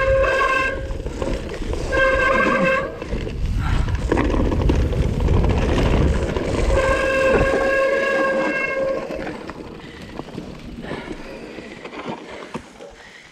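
Mountain bike brakes squealing in three bursts, a steady high-pitched squeal with overtones, the last and longest about seven seconds in. Under it runs a rumble of wind and tyres on the trail that fades toward the end.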